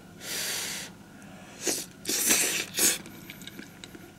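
A series of short breathy puffs of air from a person, about four, the first and third the longest.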